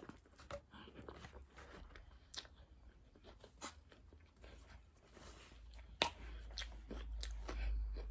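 Close-up mouth sounds of a person chewing and biting food, with scattered wet clicks and crunches, the sharpest about six seconds in. A low rumble builds near the end.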